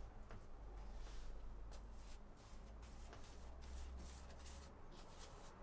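Faint scratchy strokes of a paintbrush laying primer onto a camper's interior wall, with a few soft clicks over a low steady hum.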